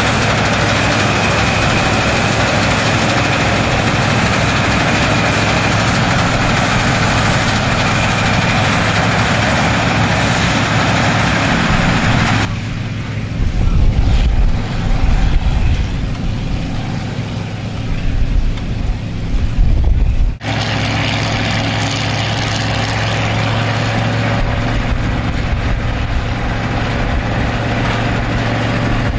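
Combine harvesters running steadily while cutting and threshing wheat: engine hum under the clatter of the threshing machinery. For several seconds in the middle, a heavy, gusty low rumble with little treble takes over, typical of wind buffeting the microphone, before the steady machine sound returns.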